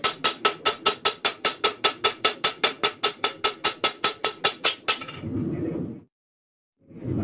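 Fast, steady hammer blows on a steel knife blade lying on an anvil, about five a second, each with a bright metallic ring. The hammering stops about five seconds in, leaving a steady rushing noise that breaks off briefly and comes back near the end.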